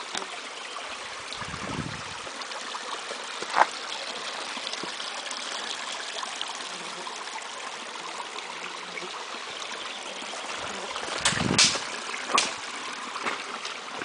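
A brook running steadily, a constant rush of water. A few sharp cracks and low thumps break through, one about three and a half seconds in and a cluster near the end, the loudest sounds here.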